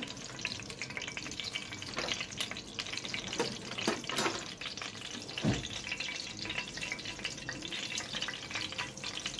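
Ghee and cooking oil heating in a pot over a gas burner, with a light, steady sizzle and small crackles as the fat gets hot before frying. A single knock about five and a half seconds in.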